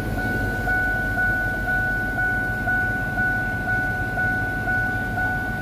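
1997 Ford F-150 engine idling, heard inside the cab, with a steady high-pitched whine over the low rumble.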